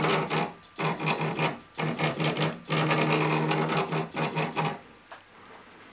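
RepRap 3D printer's stepper motors driving its axes on a first motion test: a buzzing whine in a series of short moves with brief pauses between, one longer move in the middle. The motors stop a little under five seconds in.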